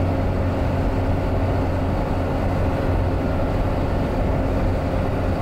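Steady in-cabin noise of a vehicle cruising at highway speed: a low engine drone with a little wind noise from an open sunroof. The Cooper Discoverer STT Pro tyres add no tyre noise that stands out.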